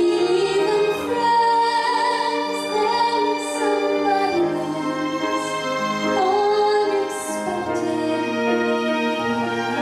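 A woman's soprano voice singing with vibrato over sustained string orchestra accompaniment.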